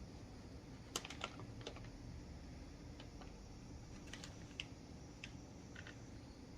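Faint, irregular light clicks and taps, scattered over several seconds, over a low steady background hum.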